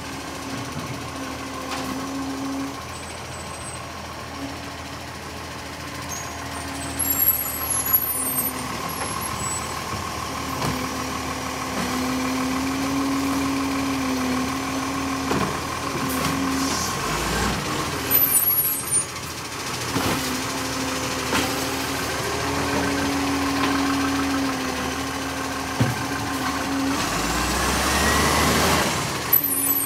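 Side-loader garbage truck (Iveco Acco) running while its automated side arm lifts and empties a wheelie bin. Short air-brake hisses come three times: about a quarter of the way in, a little past the middle, and at the very end. The engine revs up near the end as the truck pulls away.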